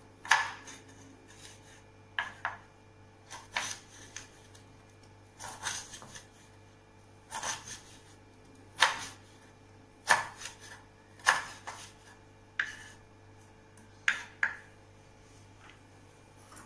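Kitchen knife slicing large red chillies on a wooden cutting board: separate cutting strokes about every second, some in quick pairs.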